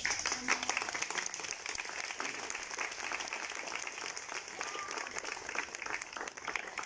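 A small group of people applauding, the clapping starting all at once and tapering off near the end.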